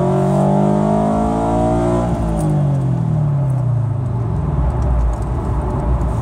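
2013 Scion FR-S's 2.0-litre flat-four boxer engine, with an equal-length header, catless front pipe and Invidia N1 exhaust, heard from inside the cabin pulling hard in second gear. About two seconds in, its pitch peaks and then falls steadily away, leaving a low rumble of road noise.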